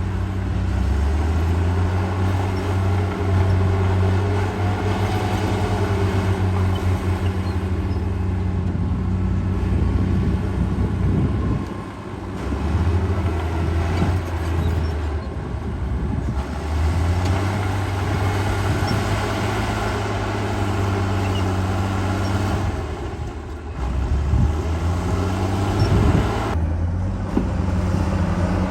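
Heavy diesel engine of earthmoving machinery running hard, its engine note easing off and changing pitch twice before picking up again.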